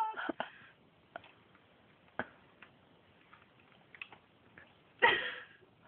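Faint scattered clicks and rustles of a reacher-grabber tool working a sock onto the foot of a leg cast. There is a short loud burst of noise about five seconds in.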